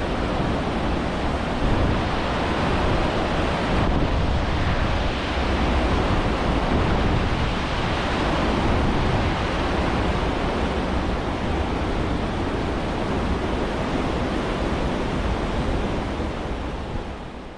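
Cruise ship's wake churning and rushing at sea, mixed with wind buffeting the microphone: a steady, heavy wash of noise that fades out at the very end.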